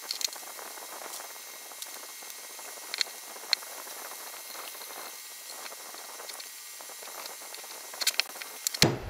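Light clicks and taps of metal parts being handled as a mounting bracket is fitted onto a CNC Z-axis slide assembly: a few scattered clicks, then a quick cluster near the end, over a steady hiss.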